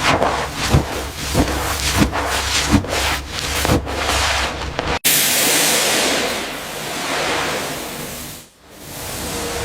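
About six sharp knocks, roughly one every two-thirds of a second, then after a sudden cut a loud, steady hiss that briefly dies away and returns.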